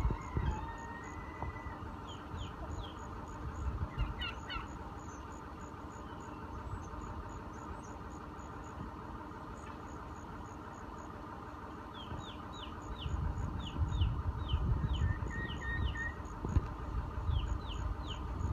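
Chickens calling in short falling chirps, a few early on and in a quick run near the end, with a low rumble growing louder in the second half.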